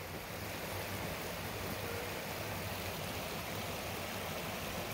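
Steady rush of water from a waterfall and its stream.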